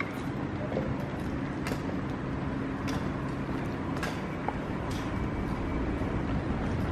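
Steady low rumble of motor-vehicle traffic, with faint sharp ticks about once a second.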